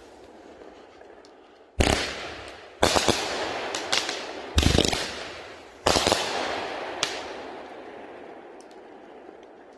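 Bright Star 'Salute to Summer' 30-shot 200-gram fireworks cake firing: about six sharp bangs between two and seven seconds in, each with a long echoing tail. Then the sound dies away.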